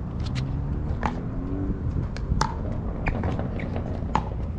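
Pickleball rally: paddles striking the hollow plastic ball, four sharp pops about a second apart, the third one fainter, over a steady low rumble.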